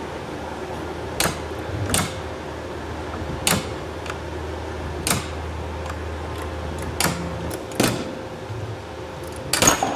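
Hand-crank steel-cable winch being cranked, its ratchet giving sharp single clicks every second or two and a quick run of several clicks near the end, over a steady low hum. The winch is drawing tension onto a 3D-printed ABS carabiner under test.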